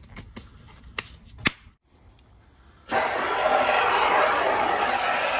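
Rubber gloves being pulled on, with two sharp snaps in the first second and a half. Then, about three seconds in, water from a hose starts running into a clear plastic tub: a loud, steady rush of water splashing into the tub.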